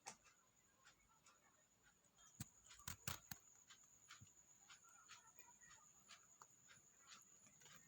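Faint, irregular small clicks and taps, a few sharper ones about three seconds in, over quiet room hiss.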